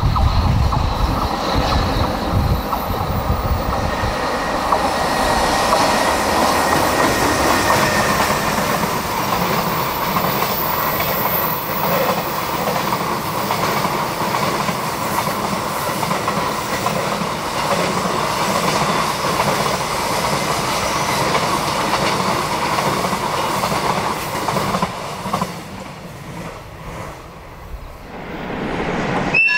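A JR Freight EH500 electric locomotive hauling a long container freight train past. The wheels clatter over the rail joints, with a heavy low rumble in the first few seconds as the locomotive goes by. The sound fades as the last wagons pass, a few seconds before the end.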